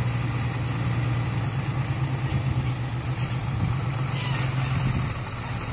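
Hino six-wheel dump truck's diesel engine running steadily at low speed as the loaded truck approaches, with a brief hiss about four seconds in.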